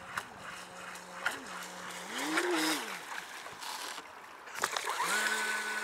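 3D-printed RC jet boat's motor whining steadily across the water. Its pitch rises and falls back about two seconds in as the throttle is opened and eased, and climbs again near the end, over wind and lapping water.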